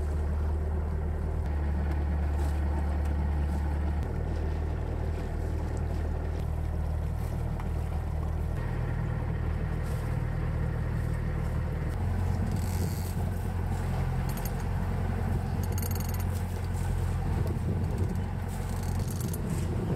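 Sailboat under way: a steady low drone with wind and water rushing past the hull, and a few short rattles from the deck gear in the second half.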